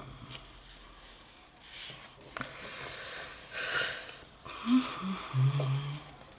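Paper pages of a colouring book being leafed through, rustling in a few bursts, the strongest about halfway in. Near the end come a couple of short low hums.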